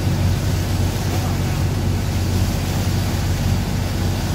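Chao Phraya river passenger boat's engine running steadily with a low drone, under a constant rush of water and wind.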